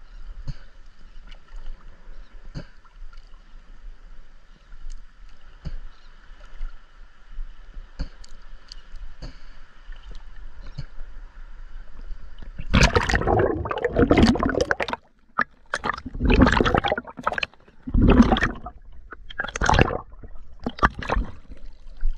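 Water lapping and sloshing at a camera held at the water's surface, soft with scattered small clicks at first. From a little past halfway, loud gurgling splashes come every second or two as the camera dips in and out of the small waves.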